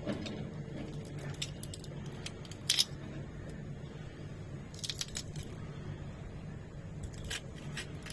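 Scattered light clicks and clinks of kitchen utensils and dishes being handled during food preparation, the sharpest a little under three seconds in, over a steady low hum.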